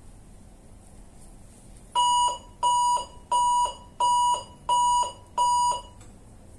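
Electrosurgical unit's alarm beeping: six identical steady electronic beeps, about three every two seconds, starting about two seconds in. The unit shows error E01 as the meat is lifted off the return electrode plate, a sign of a patient-plate contact alarm.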